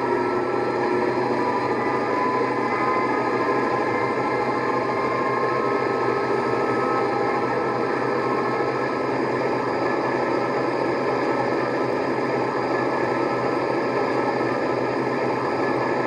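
USA Trains SD70 large-scale model locomotive running steadily at full throttle while pulling against a scale under load: a continuous mechanical whirr from its motor blocks and gearing.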